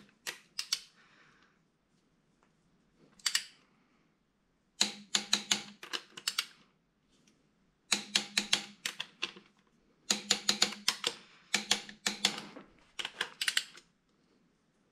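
Socket ratchet clicking in quick runs as the 2JZ's connecting-rod cap bolts are drawn down evenly to a first, seating torque; a single click comes about three seconds in.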